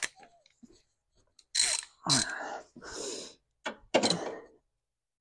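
Socket ratchet clicking in about five short bursts of strokes as a 10 mm bolt on a Fiat 500's battery tray is worked.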